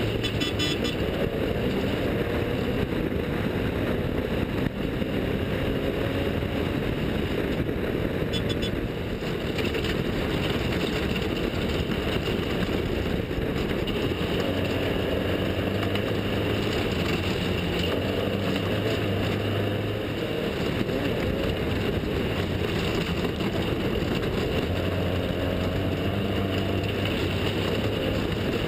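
Off-road desert race vehicle engine running hard under a constant rush of wind and dirt noise. The engine note stands out more clearly and shifts in pitch about halfway through and again near the end.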